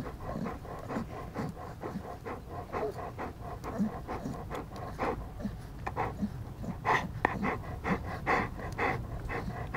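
Young Spanish mastiff puppies suckling at their mother, with quick snuffling and sucking sounds, several a second, a little louder about seven seconds in.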